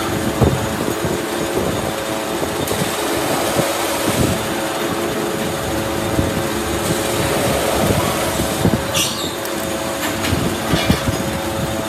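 Metal lathe running while the tool cuts the thread on a truck wheel stud: a steady machine hum with irregular clattering knocks, and a couple of short high scrapes near the end.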